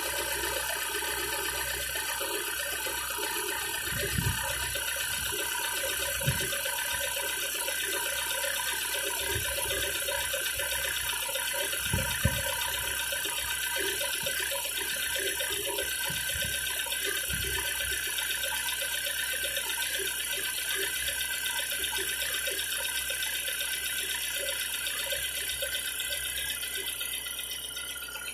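Car engine running with a steady mechanical clatter, the knock it is being recorded for. A few dull low thumps stand out, the loudest about twelve seconds in.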